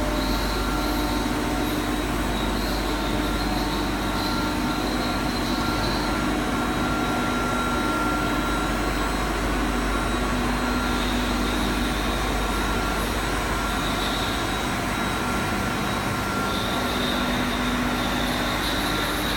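CNC tool grinding machine running steadily: a continuous mechanical hiss with several steady tones laid over it, some fading in and out.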